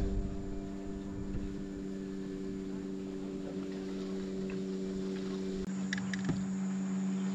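A steady low mechanical hum, with a few light clicks and taps near the end.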